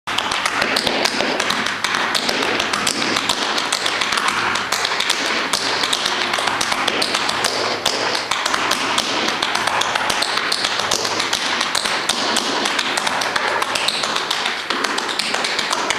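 Tap shoes striking a wooden stage floor in rapid, dense runs of taps: a tap-dance routine.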